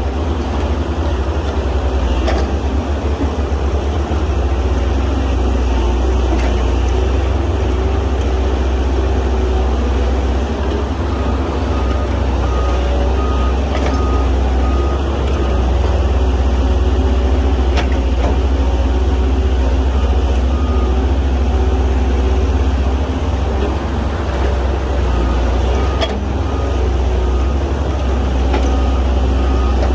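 Heavy diesel engine of an excavator loading dirt into a dump truck, running steadily under load, with a reversing alarm beeping in stretches from about a third of the way in and again near the end, and a few sharp knocks.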